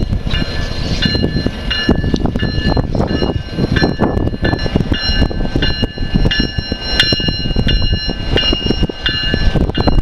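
Diesel locomotive bell ringing steadily, struck about three times every two seconds, over the low rumble and clatter of locomotives rolling through a rail yard.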